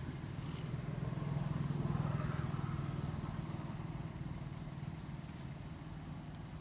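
A motor vehicle's engine passing: a low hum that grows louder to a peak about two seconds in, then slowly fades away.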